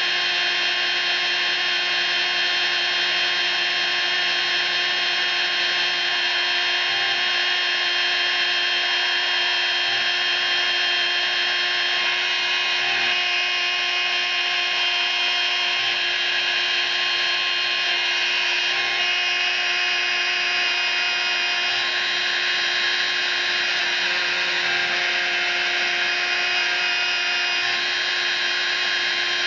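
CNC milling machine spindle running with a fine pointed bit cutting into a hard drive platter: a steady whine over the hiss of the cut.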